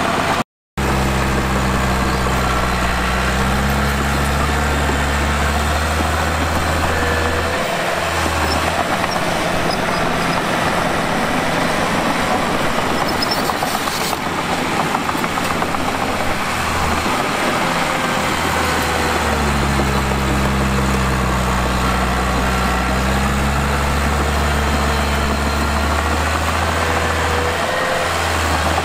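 Diesel engine of heavy earthmoving machinery running with a low, steady hum, its pitch shifting up and down a few times as the revs change. The sound drops out completely for a moment about half a second in.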